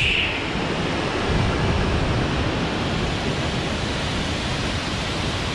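A tall waterfall pouring into a rocky pool: a steady, unbroken rush of falling water.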